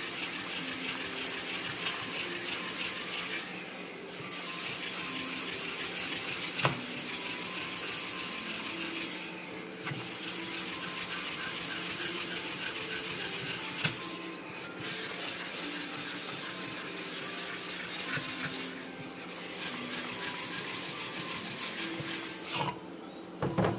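Wet gritty scraping of a coarse lapping block rubbed back and forth over a Nakayama natural whetstone, flattening its face and grinding off the pencil lines drawn on it. The rubbing goes in stretches of several seconds with short breaks, and there is one sharp tap about a third of the way in.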